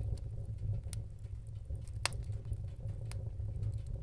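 Crackling fire ambience: sparse sharp pops, about one a second with the strongest about two seconds in, over a steady low rumble.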